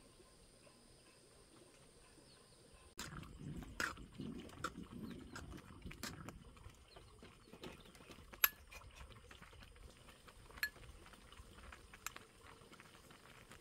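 Metal ladle stirring a pot of thick rice porridge, then scooping it out with a few sharp clinks of metal on the pot and bowl. For the first three seconds there is only faint background with a steady high hum.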